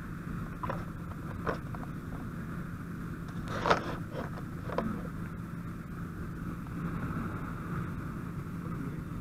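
Vehicle engine running steadily, heard from inside the cab as a low rumble with a constant hum. A few knocks and clatters break in, the loudest a little under four seconds in.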